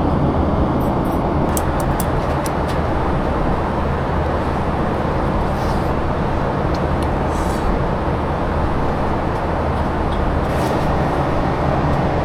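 Steady roar of airliner cabin noise, engines and rushing air with a low hum underneath, with a few faint clicks.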